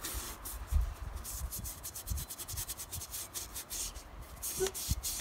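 Hand-scrubbing bare metal parts of a Chevy 14-bolt differential clean: quick, repeated back-and-forth rubbing strokes, with a light knock near the end.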